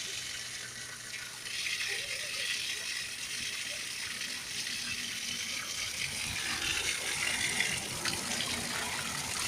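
Washing machine running while it pumps out its water, the drain stream splashing onto the ground in a steady hiss, with some rattling; the hiss gets louder about a second and a half in.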